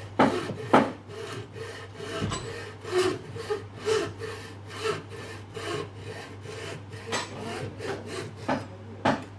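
Hand sawing with a traditional Chinese wooden frame saw, its thin tensioned blade rasping back and forth through a small piece of wood held in a vise, at about two strokes a second. The first two strokes are the loudest.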